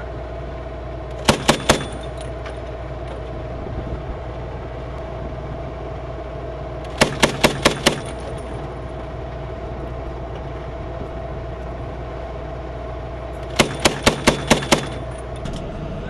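Mk 19 40 mm automatic grenade launcher on a remote weapon station firing three short bursts of three to six rounds each, at about six shots a second. Under the bursts the armored vehicle's engine runs steadily.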